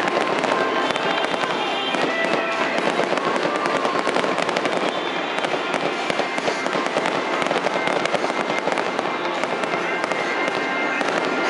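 Aerial fireworks bursting in a continuous barrage: dense, rapid pops and crackles overlapping, with no break.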